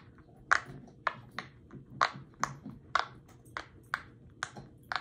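Silicone pop-it fidget toy, its bubbles pressed down one after another with a finger: a steady run of sharp little pops, about two to three a second.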